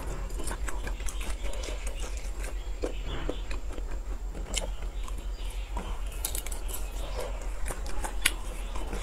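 Close-up eating sounds of grilled sausage being chewed and torn apart by hand: scattered soft moist smacks and small sharp clicks, a few louder near the end.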